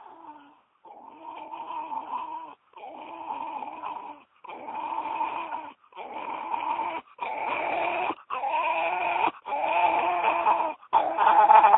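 A small dog vocalising in a series of about eight drawn-out calls of a second or so each, with short breaks between them. The calls grow louder toward the end.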